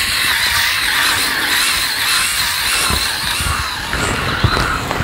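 Skull Shaver Pitbull Platinum Pro rotary head shaver running against the scalp, its steady whine wavering slightly in pitch as the heads cut through short stubble. A few low bumps come in the second half.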